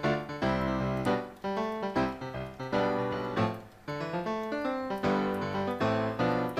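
Background piano music: notes and chords struck in quick succession, each ringing and fading.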